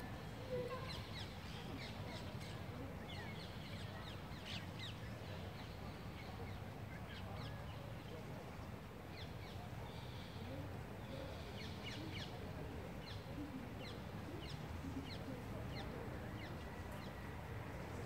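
Outdoor bird calls: many short, high chirps and calls scattered throughout, over a steady low rumble of background noise.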